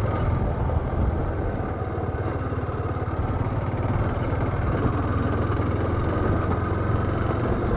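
Motorcycle engine running steadily while the bike rides along, with a steady hum and the rush of travel over it.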